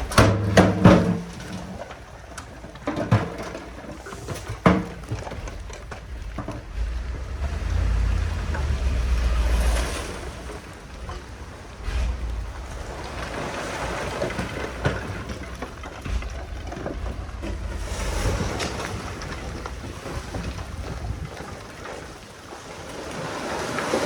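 Heavy earthmoving machinery at work: a low engine rumble that swells and fades, with a few knocks and clanks in the first five seconds, and wind buffeting the microphone throughout.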